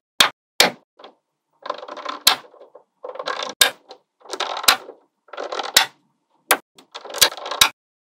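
Small magnetic balls clicking and rattling: about five times a strip of balls clatters against the rows already built and ends in a sharp snap as it locks into place, with a few single snaps between.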